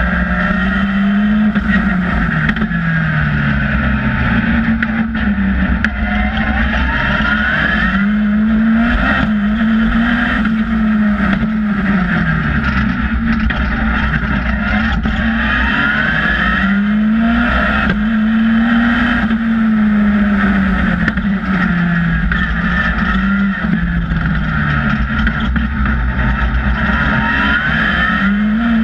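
Westfield SEi sports car's engine recorded on board at racing speed, its note repeatedly climbing and then dropping in pitch as the car accelerates and slows for the bends. A steady low rumble of wind and road noise runs underneath.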